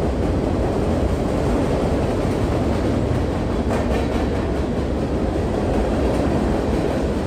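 Freight cars (open hoppers and gondolas) rolling past at speed: a steady rumble of steel wheels on the rails, with a few faint clicks a little before the middle.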